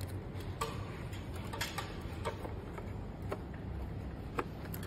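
Scattered light clicks and taps of a projector circuit board and its small wire connectors being handled and fitted by hand, over a steady low hum.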